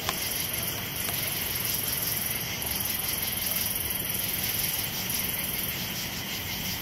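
Night insects chirping in a steady chorus. A very high-pitched trill stops and starts every second or two over a constant background hiss.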